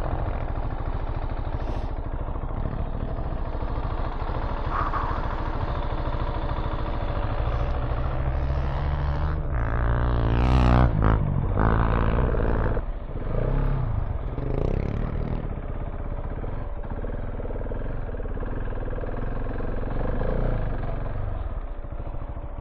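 Single-cylinder engine of a KTM 690 Enduro R dual-sport motorcycle running off-road. It revs up with rising pitch from about eight seconds in, peaks around eleven seconds, and drops off sharply just before thirteen seconds, with some clatter.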